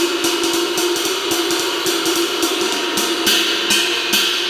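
Cracked 24-inch Levite handmade ride cymbal struck repeatedly with a stick, several strokes a second, over a sustained wash with a steady ringing tone. A brighter, louder hit comes a little past three seconds in. The cymbal has a crack on its bow and at the edge, not yet repaired.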